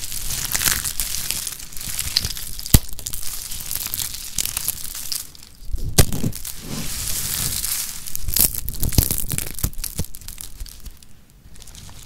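Crisp, dry soap curls being crushed and crumbled by hand into flakes, a continuous crackling crunch with two sharp snaps about three and six seconds in. It grows quieter near the end as the hands press the pile of flakes.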